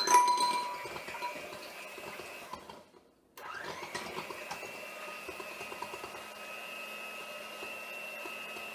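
Electric mixer beating in a bowl. It opens with a sharp metallic ring, cuts out about three seconds in, then starts again with a rising whine and runs steadily, whipping egg whites.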